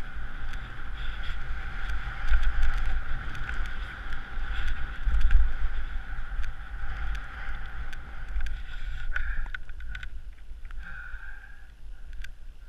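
Wind buffeting an action camera's microphone while skiing downhill, with skis hissing and scraping over snow and scattered sharp clicks. A steady high tone rides over it, and the wind noise and tone ease off after about nine seconds.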